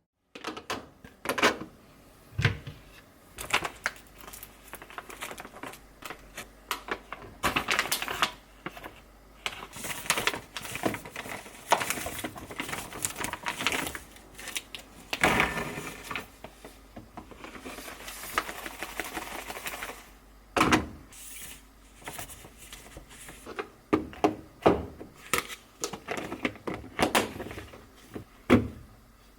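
A busy run of irregular clicks, knocks and rustling from objects being handled close to the microphone, with a few longer scraping or rustling stretches.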